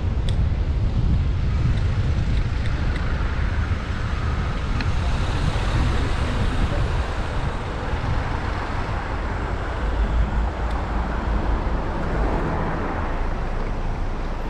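Wind buffeting the microphone of a cyclist's camera while riding, mixed with the steady running of nearby cars in traffic.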